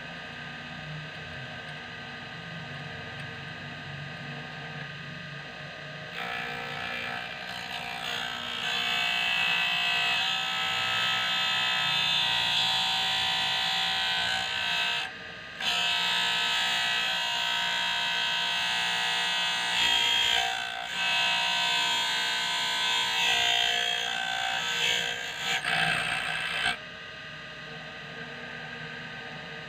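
6-inch bench grinder running with a steady hum; from about six seconds in, the tip of a steel twist drill bit is held against the grinding wheel to sharpen it, giving a loud, gritty grinding. The grind breaks off briefly about halfway through and a few times near the end as the bit is lifted and repositioned, then stops, leaving the grinder running alone.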